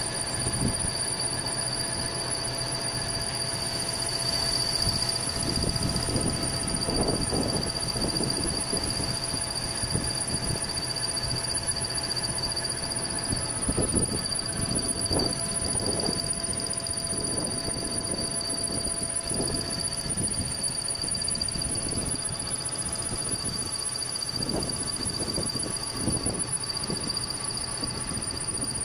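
Vertical milling machine cutting a keyway into a metal shaft with an end mill under coolant: the machine runs with a steady high-pitched whine, while the cutter grinding through the metal comes in irregular swells every second or so.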